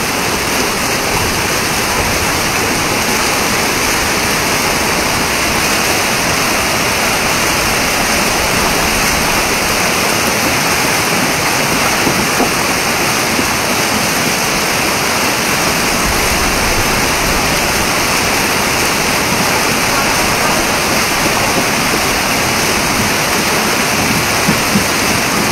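Fast, muddy floodwater surging down a street as a churning torrent: a loud, steady rushing of water.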